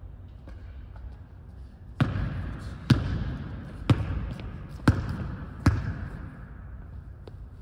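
A basketball dribbled on a hardwood gym floor: five bounces about a second apart, each echoing through the hall.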